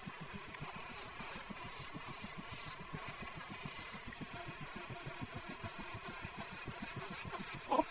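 Vintage Rockwell Delta wood lathe running steadily with a spindle turning, with an intermittent hiss as the spinning wood is worked by hand. A short louder sound comes right at the end.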